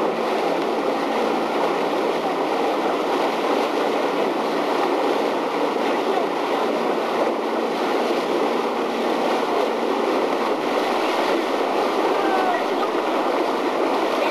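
Steady rushing noise of a motor launch under way, its engine running and water rushing past the hull, with no distinct events.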